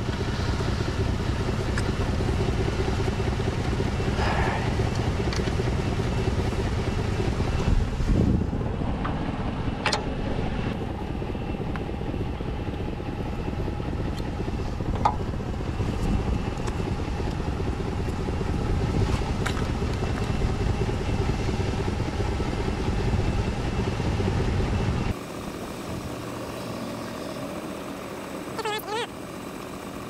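Ford F-250's 6.2-litre gasoline V8 idling steadily, with a few light clinks of tools on the plow's hydraulic pump fittings. Near the end the engine sound drops abruptly to a fainter hum.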